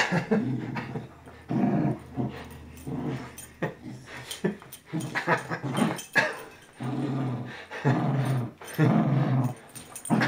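Young beagle growling in repeated short bursts while biting, shaking and tugging at a fleece hand puppet.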